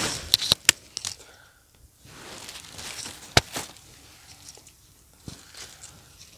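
Footsteps rustling and crunching through dry fallen leaves and twigs, with a few sharp snaps and clicks, the loudest snap a little past the middle.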